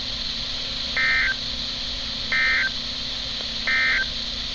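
Three short bursts of Emergency Alert System digital data tones, the SAME end-of-message code, played over a NOAA Weather Radio broadcast to close a warning. Each burst lasts about a third of a second and they come evenly spaced, over steady radio hiss.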